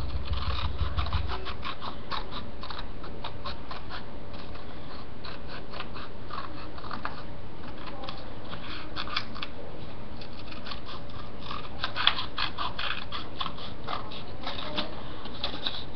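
Scissors cutting paper: an irregular run of small snips and rustles, with a sharper click about twelve seconds in.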